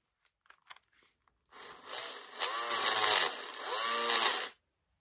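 Cordless drill's motor running on the trigger for about three seconds, its pitch rising and falling twice as it speeds up and slows. It sounds rough, like crap, because a broken piece is moving around inside the housing.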